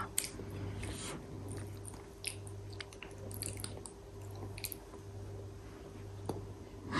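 Faint sounds of a toddler chewing a mouthful of food, with small scattered clicks and smacks, over a steady low hum.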